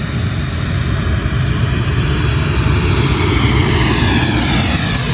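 Boeing 737 jet airliner's CFM56 turbofan engines at approach power as it flies in low on final approach, growing louder as it closes in. A whining engine tone begins to fall in pitch in the second half as the plane comes overhead.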